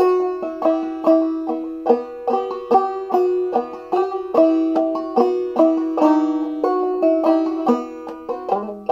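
Banjo played clawhammer style: a brisk instrumental run of struck, quickly fading notes at about three to four a second, with one string ringing on steadily under the melody.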